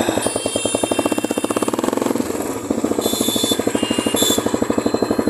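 Royal Enfield 350's single-cylinder four-stroke engine running with a rapid, even beat of firing pulses, easing off briefly around two seconds in and then picking up again.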